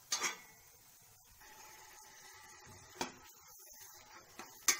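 Sharp knocks of a metal spoon or ladle against a steel cooking pan, four of them with the loudest near the end, over a faint steady sizzle of chopped onions just added to hot mustard oil.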